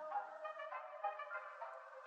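Background music: a quiet melody of short pitched notes, with no bass or drums.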